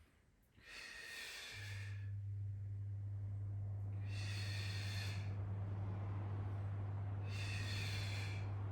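A person's heavy breaths close to the microphone, three airy breaths about three seconds apart, paced with a core exercise. A low, steady electrical hum starts about a second and a half in and continues underneath.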